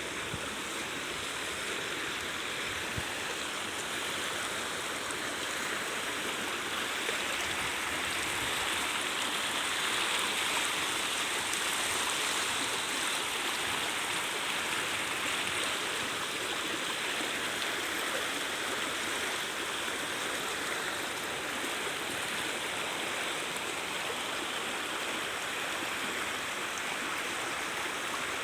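Floodwater rushing steadily down a swollen stream.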